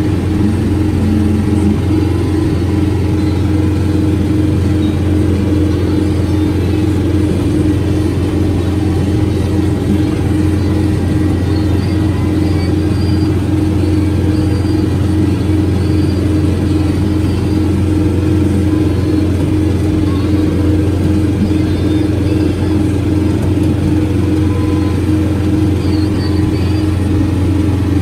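John Deere 4066R compact tractor's diesel engine running steadily under load, driving a Rhino Ag Rebel 72-inch PTO rototiller through soil and weeds. Heard from the operator's seat as a constant low drone with a steady hum above it.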